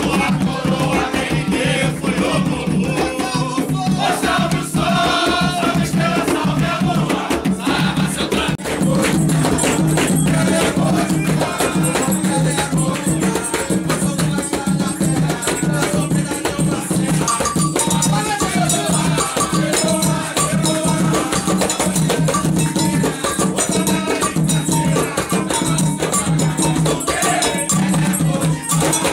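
Umbanda atabaque drums beaten with bare hands in a steady driving rhythm, with rattling percussion and voices singing along.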